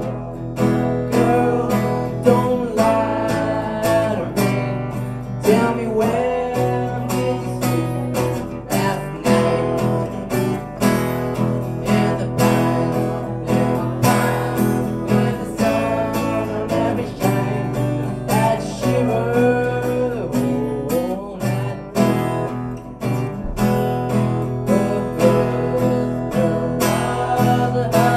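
A young man singing into a microphone while strumming an acoustic guitar in a steady rhythm, amplified through a PA.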